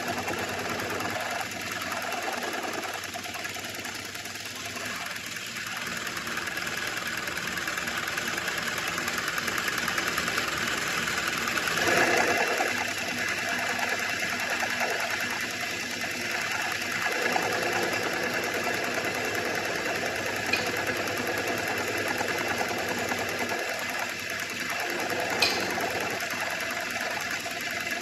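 Metal lathe running, turning a welded workpiece down to bearing size, with a steady machine hum that grows louder briefly about halfway through and a few faint clicks later on.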